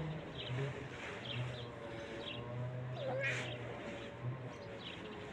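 A cat gives a single short meow about three seconds in, over a steady distant hum and small bird chirps.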